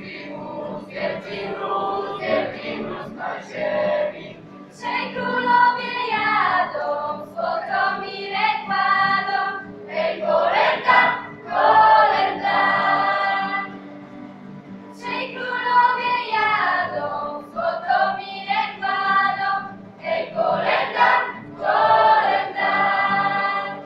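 A class of schoolchildren singing a Polish Christmas carol together in phrases, accompanied by an acoustic guitar.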